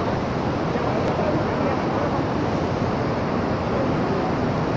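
Steady, loud rushing noise of stormy weather, even and without breaks.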